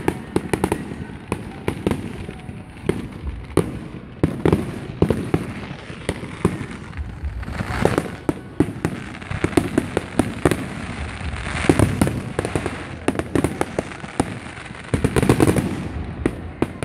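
Fireworks going off in quick succession: a steady run of bangs and crackles, bunching into thicker volleys about halfway through and again near the end.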